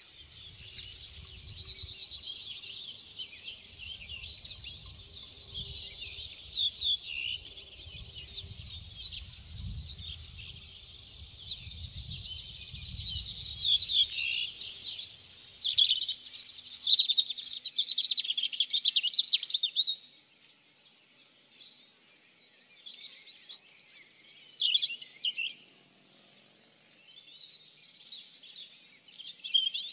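Several small birds singing and calling together in a dense chorus of high chirps and trills, with a low rumble under the first half. After about twenty seconds it thins to scattered calls with short quiet gaps.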